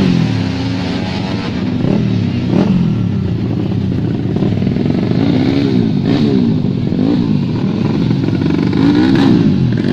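Tuned racing motorcycle engines running hard, their pitch rising and falling again and again as the riders work the throttle and gears.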